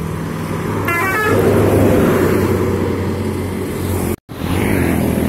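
A bus's multi-tone 'telolet' horn plays a quick stepped melody about a second in. Then comes the loud rush of the bus's engine and passing traffic over a steady low hum. The sound breaks off for an instant near the end.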